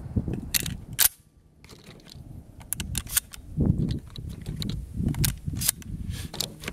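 Lion X6 semi-automatic shotgun being reloaded by hand: shotshells pushed one after another into the tube magazine through the loading port, making a series of sharp, irregular metallic clicks and clacks.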